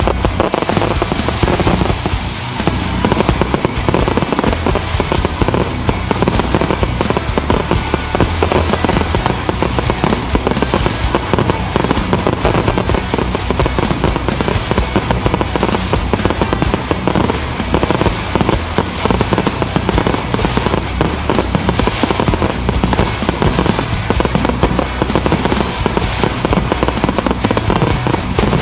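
Fireworks grand finale barrage: a dense, unbroken run of rapid bangs and crackles, with no pauses.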